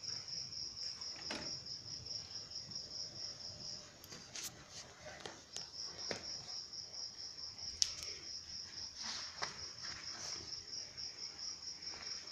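High, evenly pulsed insect chirping, about five or six chirps a second, that stops for a couple of seconds partway through and then resumes. Scattered sharp clicks and knocks from a puppy playing with a toy on a tiled floor.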